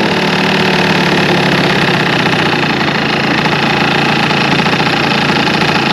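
Honda Live Dio ZX 50cc two-stroke scooter engine idling close up, with a steady rattle ("ガタガタ") that the owner puts down to the muffler rather than the crank bearings, which have been replaced.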